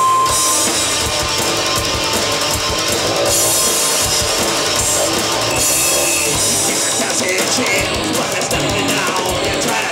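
A live rock band playing loud and continuously, with electric guitar, bass guitar and drums.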